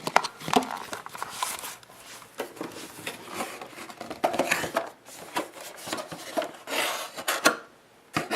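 A gaming mouse's cardboard and plastic retail packaging being handled and opened: irregular clicks and knocks mixed with scraping, rustling rubs.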